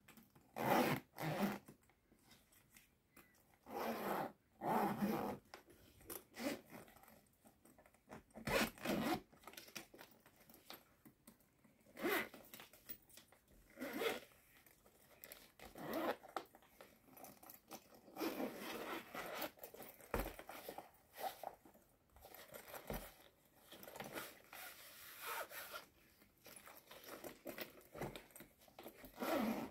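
Zippers on a black leather men's shoulder bag being pulled open and shut in short, scratchy runs, between softer rubbing and handling of the leather. The runs come at irregular intervals, with quiet gaps between them.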